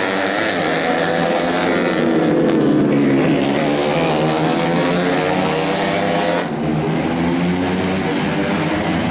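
Tuned 125cc four-stroke underbone race motorcycles running at high revs, their engine notes rising and falling as they accelerate and brake through the corners, with the sound changing abruptly about two seconds in and again after six seconds.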